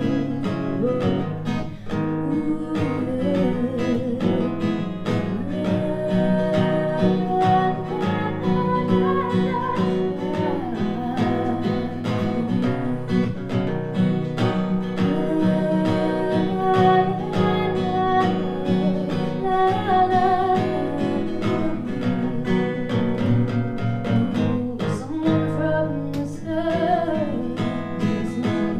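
A song played live on acoustic guitar, strummed and picked, with a voice singing over it at times.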